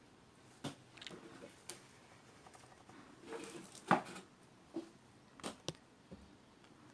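Homemade slime being stretched and handled, giving a scattering of short, sticky pops and clicks, the loudest about four seconds in.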